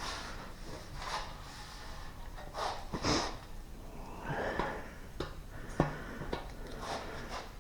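Body filler being spread over a car body panel with a plastic spreader: a few separate scraping strokes, with several sharp clicks of the spreader in the later half.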